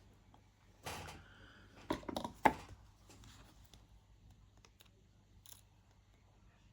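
Small jewellery hand tool working a fine metal chain to split it in two: a short scrape about a second in, then a quick run of sharp metallic clicks, the loudest at the end of them, and a few faint ticks afterwards.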